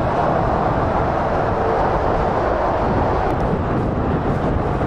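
Motorway traffic with lorries and cars passing, giving a steady roar of tyres and engines.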